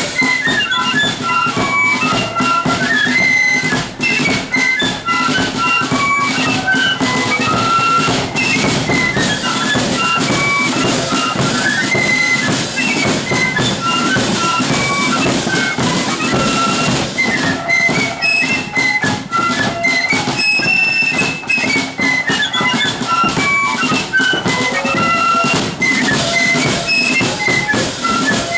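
Marching flute band of the blood-and-thunder kind playing a tune: many flutes in unison carrying a quick high melody over snare and bass drums.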